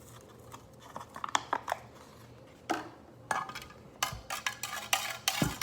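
Handling of MRE food packets and a utensil: scattered sharp clicks and taps with a couple of short rustles, growing busier from about four seconds in, as the orange beverage powder is readied for mixing with water.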